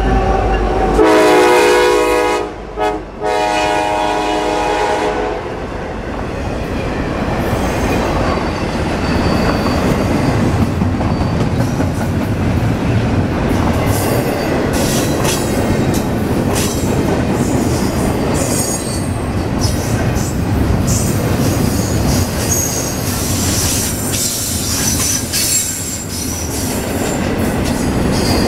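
Norfolk Southern freight train passing close by. The lead EMD SD70ACe locomotive sounds its horn for about four seconds, broken briefly in the middle. Then double-stack intermodal cars roll past with a steady rumble of wheels on rail and a thin, high wheel squeal.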